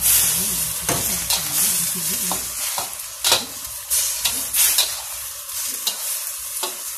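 Shredded jackfruit and chilies sizzling loudly in a metal wok as they are stir-fried, the sizzle jumping up at the start. A metal utensil scrapes and clicks against the pan about a dozen times.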